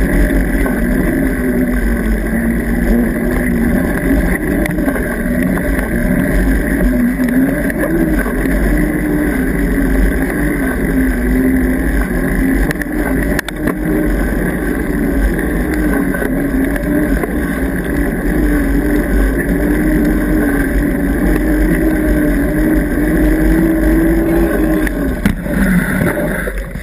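Mountain bike tyre humming on asphalt in a steady drone that wavers slightly in pitch, with wind rumbling on the camera microphone. The hum drops in pitch and fades near the end as the bike slows.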